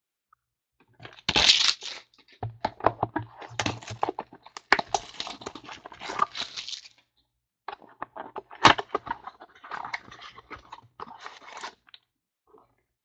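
Trading card packaging being torn open and handled: a run of crinkling, tearing and sharp clicks, loudest about a second and a half in and again near nine seconds.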